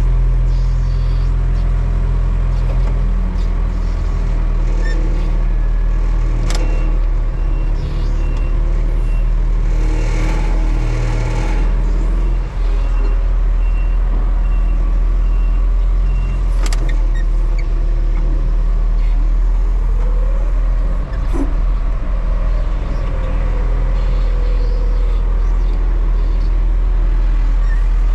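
Tractor engine running steadily under load, with a few sharp knocks and a slow pitch sweep partway through.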